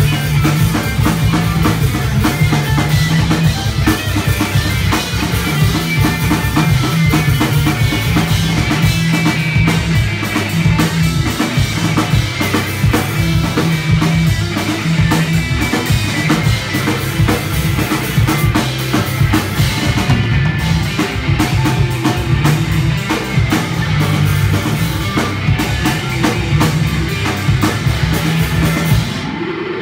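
Live punk rock band playing loud: drum kit, electric bass and distorted electric guitar. The music breaks off for a moment near the end.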